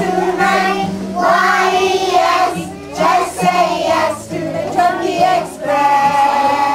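A group of young children singing a song together in short phrases, over a steady instrumental accompaniment.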